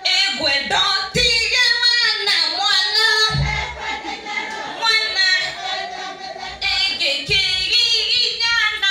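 A group of women singing together as they dance, several voices at once.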